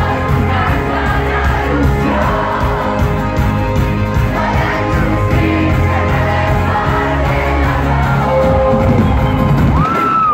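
A live band playing loud, with drums, bass, brass and singing, and the crowd shouting along. Near the end a high note swoops up, holds and falls away.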